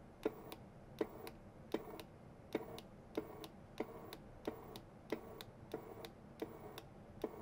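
JBC solder feeder's motor and drive rollers pushing solder wire in short repeated feed steps. Each step is a click, a brief whirr and a second click, coming about once every three-quarters of a second. The wire is now feeding through repeatably without jamming.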